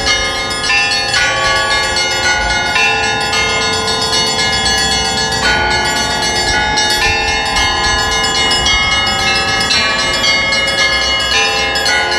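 Russian Orthodox church bells ringing: many bells of different pitches struck in quick succession, their tones ringing on over one another.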